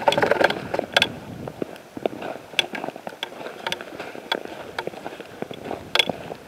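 Footsteps crunching through thin snow on a rocky trail, an irregular run of sharp crunches and clicks over clothing rustle, with heavier knocks of camera handling in the first second.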